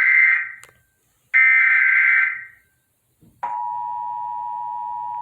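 Emergency Alert System header data tones from a TV: one burst of rapid electronic warbling ends just under a second in and another follows, each about a second long. About three and a half seconds in, the steady EAS attention tone starts, a constant two-note tone.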